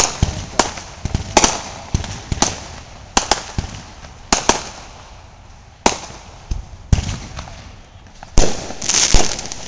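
Aerial fireworks bursting overhead: a string of about a dozen sharp bangs at uneven intervals, some in quick pairs. The loudest bangs come near the end.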